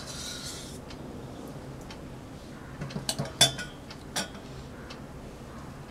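Metal kitchen utensils knocking against a steel bowl and strainer: a brief scrape at the start, then a quick cluster of light clinks and taps around the middle and one more clink shortly after.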